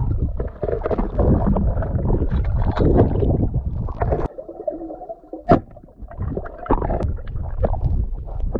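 River water splashing and gurgling close to the microphone, a muffled, uneven rumble, with a single sharp knock about five and a half seconds in.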